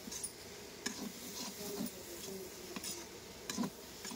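A slotted spatula stirring a dry jackfruit and potato sabzi in a kadhai, scraping and clicking against the pan at irregular intervals about once a second.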